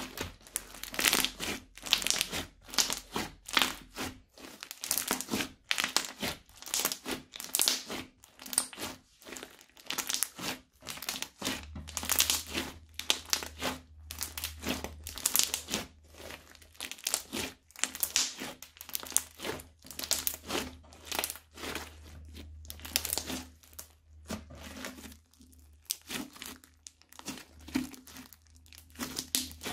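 Crunchy slime crackling as hands squeeze, fold and stretch it: a rapid run of short crackles, about one to two a second, with brief gaps between handfuls.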